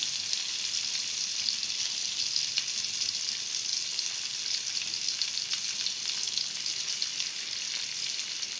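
Chilli-coated dried fish pieces shallow-frying in hot oil in a non-stick pan, making a steady sizzle dotted with small crackles.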